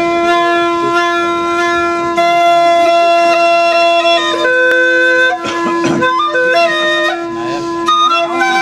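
Alghoza, the Sindhi double flute, playing: one pipe holds a steady unbroken drone while the other plays a melody that steps up and down above it.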